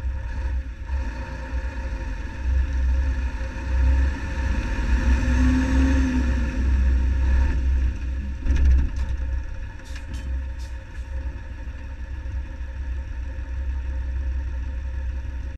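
Truck cab interior: engine running with road noise, a steady low rumble. It swells for a few seconds as the vehicle pulls along, then eases off about halfway through as it slows. A few sharp clicks come soon after.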